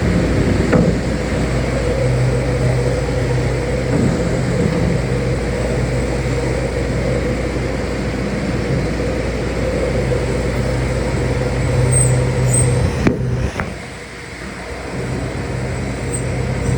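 A steady motor noise with a low hum. A couple of clicks sound about thirteen seconds in, then it drops away for a second or two and comes back.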